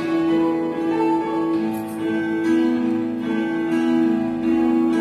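Slow instrumental music from an electronic keyboard holding long sustained notes over an acoustic guitar's strummed chords.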